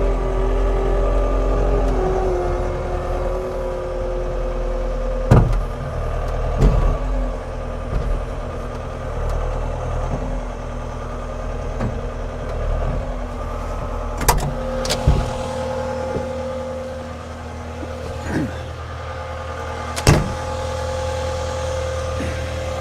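Skid steer engine running steadily, its pitch shifting as the revs change, with several sharp clanks spread through.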